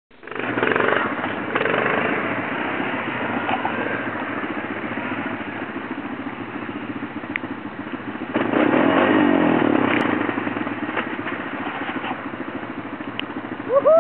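ATV engines running: a quad close by runs steadily while another comes up the trail, the engine noise swelling louder about eight and a half seconds in.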